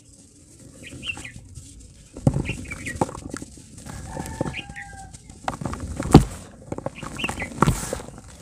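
Dry grey dirt and crumbly chunks crushed and crumbled by hand in a plastic tub, crunching and crackling as the loose dirt spills and patters back down. It starts about two seconds in, with the sharpest crunch a little past the middle. Short bird calls chirp in the background.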